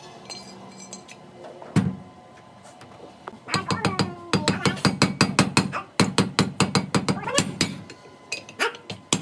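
A hammer striking metal: one lone blow, then from about three and a half seconds in a fast run of blows, about four a second, each ringing briefly.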